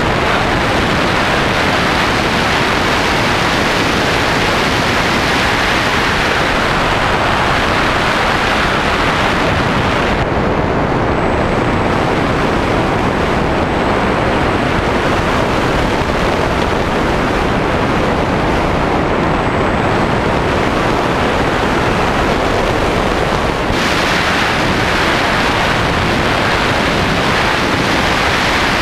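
Loud, steady wind rush over the onboard camera of an S800 Sky Shadow FPV flying wing in flight. About ten seconds in, the hiss turns duller, and it brightens again near the end.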